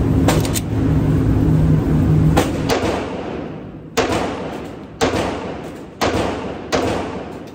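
9mm Glock pistol shots in an indoor range, each a sharp crack with a short echo. A few come in the first half over a steady low hum, then four more at about one a second.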